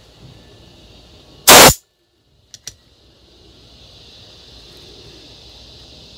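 A short, very loud blast of compressed air from an air blow gun, about a second and a half in, blowing out a carburetor part after it has been cleaned. Two light clicks follow about a second later.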